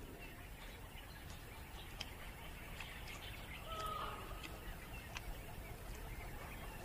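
Faint natural background ambience with a few faint bird calls, including a short whistled note about four seconds in.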